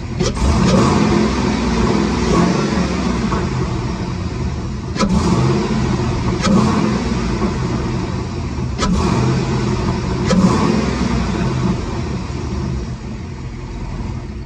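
Pickup truck engine running through a newly fitted aftermarket open-filter air intake, revved in several short blips over idle so the intake sound can be heard. The intake noise is loud, audible far off.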